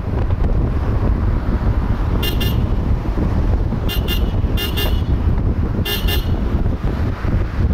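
Wind buffeting a microphone on the outside of a moving car, a steady low rumble, with a vehicle horn giving four pairs of short beeps between about two and six seconds in.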